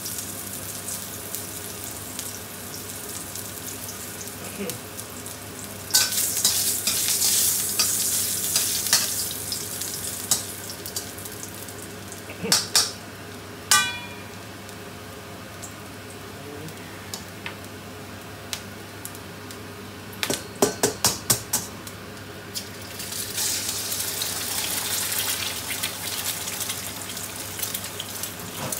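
Ginger sizzling in hot oil in a stainless steel wok. The sizzle swells loudly for a few seconds. A metal spatula knocks against the wok twice, the second time with a short ring. After a quick run of sharp taps, a loud sizzle starts as an egg fries in the oil near the end.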